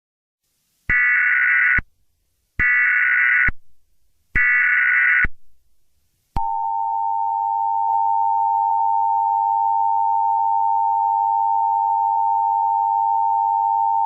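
Emergency alert tones in the style of the US Emergency Alert System. Three short header data bursts come one after another, then the steady two-tone attention signal starts about six seconds in and holds.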